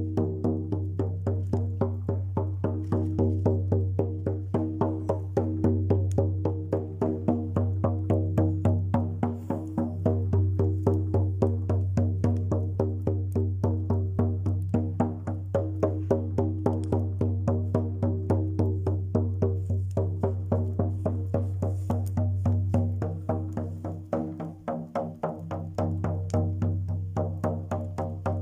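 Rhythmic music: a steady low drone with held tones under fast, even percussion strikes, about five a second, easing briefly near the end.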